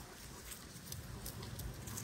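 Faint patter and scuffling of feet on the ground as dogs move about, with a few light clicks.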